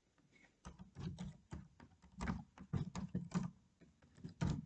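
Computer keyboard being typed on: a quick, uneven run of quiet key clicks, starting a little under a second in, as a password is keyed in.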